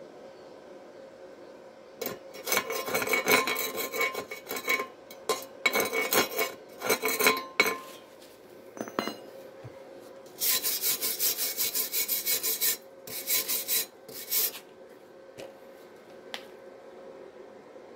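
Steel wire brush scrubbing slag and spatter off a stick-weld bead on rusty iron plate, in four spells of quick scraping strokes, with a few single sharp taps between them.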